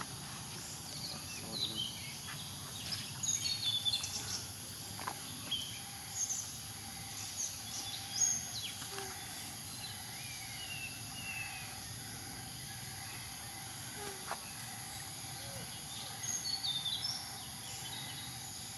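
Outdoor ambience: a steady high insect drone with scattered short bird chirps, clustered about three to four seconds in, around eight seconds and again near the end.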